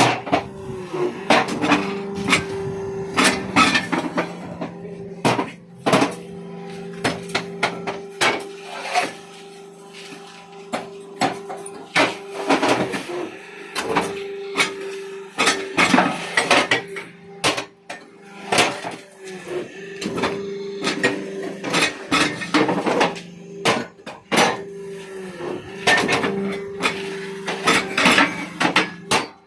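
Irregular sharp knocks and clacks of hand construction work, such as blocks being set and tapped into place. Under them runs a steady machine hum that dips briefly in pitch every few seconds.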